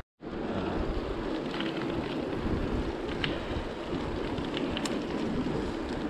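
Steady rushing of mountain bike tyres rolling on asphalt while riding in a group, mixed with wind on the camera microphone, with a few light clicks. The sound drops out for a moment at the very start.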